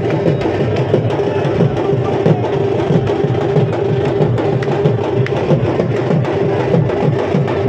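Drums beating a fast, even rhythm to accompany lathi khela stick-fighting.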